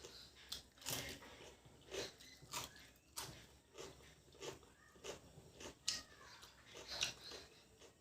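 Close-miked chewing and mouth sounds of a person eating mutton curry and rice, with irregular smacks and clicks a few times a second.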